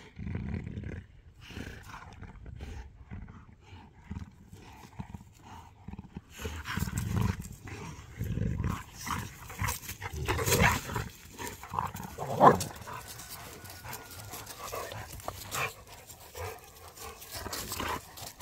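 Cane Corso dogs growling in rough play, in irregular low rumbling bursts, with one short, sharp, louder sound about twelve and a half seconds in.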